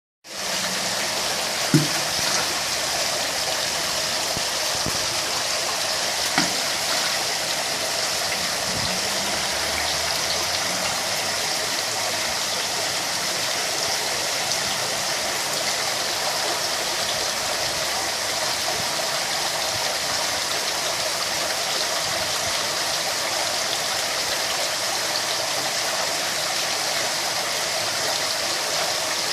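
Steady rush of water running into a koi pond, with two brief thumps about two and six seconds in.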